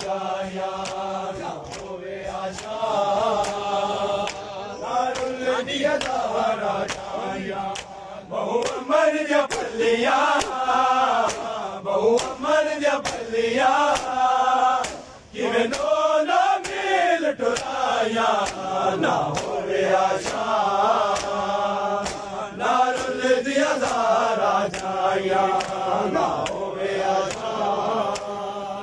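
Male voices chanting a noha, a Shia mourning lament, with steady hand slaps of matam (chest-beating) keeping the beat. The chant breaks off for a moment about halfway through.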